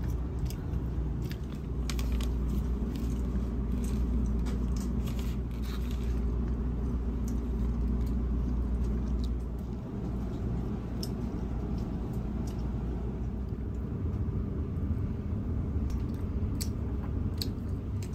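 Train heard from inside the passenger carriage: a steady low rumble with scattered light clicks.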